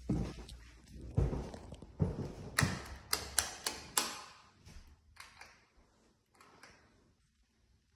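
Footsteps on old wooden floorboards: a run of thumps and clicks, quicker around three to four seconds in, then fainter and dying away.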